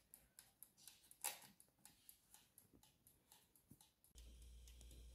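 Faint ticking of an electric countertop oven's mechanical timer just set by its knob, about three to four ticks a second, with one louder click a little over a second in. Near the end the ticking gives way to a steady low hum.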